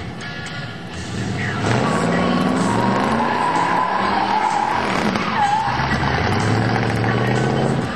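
1996 Chevrolet Impala SS's 5.7-litre LT1 V8 revving hard while the rear tyres spin and squeal through a donut. The squeal starts about a second and a half in, wavers in pitch, and cuts off suddenly at the end.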